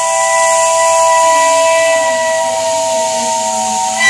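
Steam locomotive chime whistle holding one long chord of several notes over the hiss of escaping steam. The whistle cuts off sharply near the end.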